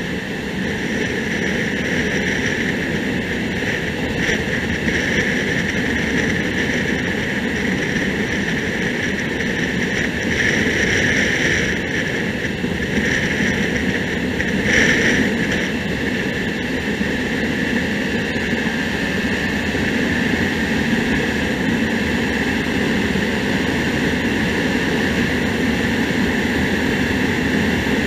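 Hyosung GD250N single-cylinder motorcycle cruising steadily at road speed: engine drone mixed with a steady rush of wind noise, with a brief louder swell about halfway through.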